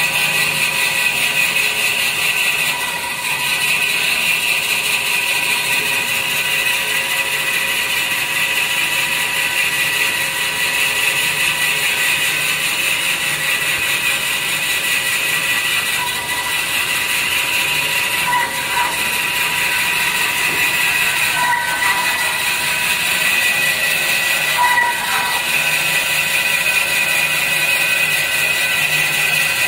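Band-saw log cutter for toilet paper and kitchen towel rolls running steadily with a high whine. Several times the whine briefly dips and wavers as the blade goes through the paper rolls.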